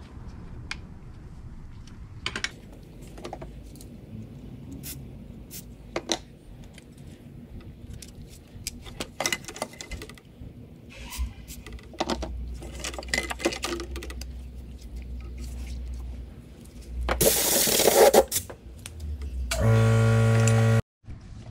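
Hand-tool work on a car: scattered metal clicks and clinks, then a loud hiss lasting about a second, followed by a loud steady buzz that cuts off suddenly.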